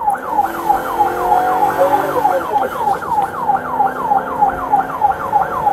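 Police patrol car siren on yelp, heard from inside the car's cabin: a fast repeating falling whoop, about four a second. The car is running code 3 through intersections on an emergency response.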